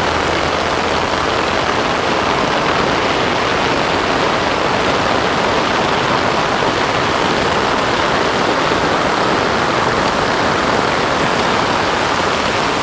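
A mountain storm creek running in flood: a steady, loud rush of fast water.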